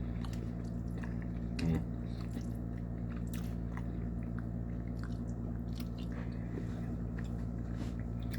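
A person eating chicken spaghetti close to the microphone, with wet chewing and small mouth clicks throughout and one louder bump a little under two seconds in. A steady low hum runs underneath.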